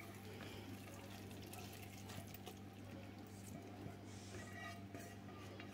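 Silicone spatula scraping chopped onion out of a non-stick frying pan into a pot of beans: faint soft scrapes and light taps, over a steady low hum.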